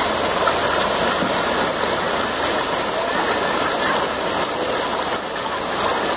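Fast-flowing muddy floodwater rushing across a street, a loud steady noise without breaks.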